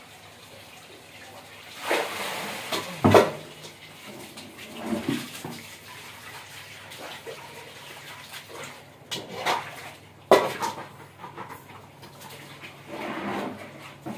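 Water splashing intermittently on a wet concrete floor as something is washed by hand under a hose, with two sharp knocks, one about three seconds in and one about ten seconds in.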